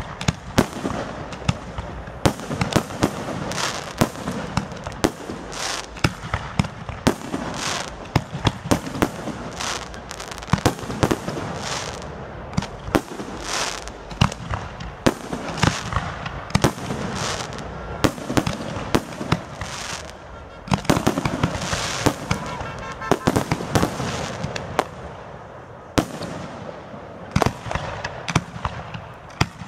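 Aerial fireworks display: a dense, continuous barrage of shell bursts, several bangs a second, thinning briefly twice.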